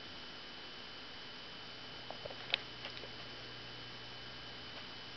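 Quiet room tone: a steady electrical hum with a thin high whine, broken by a few soft clicks a little past the middle.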